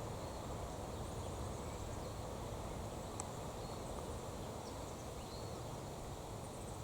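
Steady outdoor wind noise, strongest low down, with a few faint, short, high chirps scattered through it.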